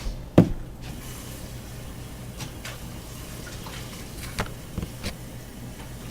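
Kitchen tap running as a measuring cup is rinsed at the sink, with one sharp knock about half a second in and a few lighter clicks of the cup against the sink and dishes.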